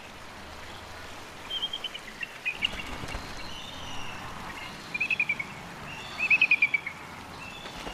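Bald eagle calling: four short bursts of rapid, high, piping notes that fall slightly in pitch, the last two the loudest, over a steady outdoor background.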